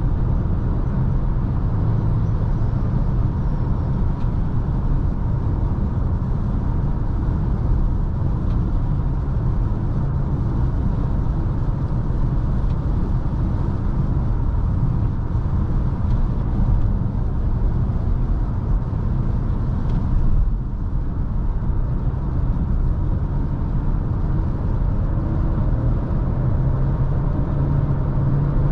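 Chery Tiggo 4 Pro on the move, heard from inside the cabin: steady engine and tyre-road rumble. Near the end the engine note rises as the car speeds up.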